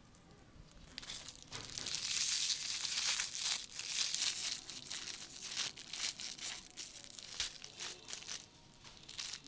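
Aluminium foil wrapper being crinkled and peeled open by hand around a small toy car, a dense crackling that starts about a second in and is loudest soon after.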